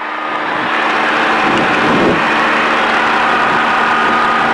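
Quad City Challenger II ultralight's air-cooled engine and propeller running steadily in flight, with wind rushing over the airframe.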